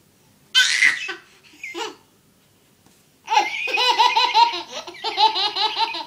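Baby belly-laughing in a fast run of short, high-pitched pulses, starting about three seconds in. Before it, about half a second in, comes a short loud hissing burst.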